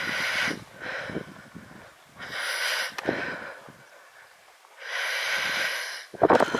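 A hiker breathing heavily close to the microphone, three long breaths about two and a half seconds apart, with footfalls on a stony hillside path between them. A sharper thump near the end is the loudest sound.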